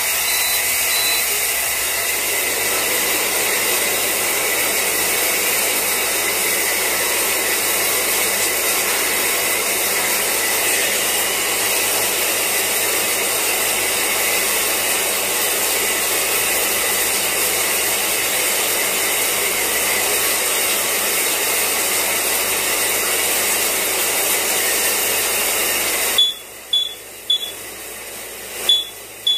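Shower water running, a steady hiss, heard on a phone voice recording. About 26 seconds in the hiss cuts off and a smoke alarm starts sounding a few short, high, loud beeps.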